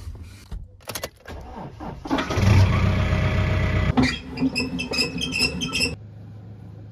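Toyota Hilux pickup's engine cranking and starting about two seconds in, loud. After a cut it is followed by a rapid run of sharp clicks that stops suddenly, and then a steady low hum.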